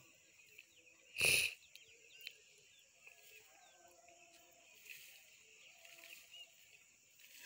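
Faint outdoor ambience with scattered faint high chirps, broken about a second in by one short, loud burst of noise lasting under half a second.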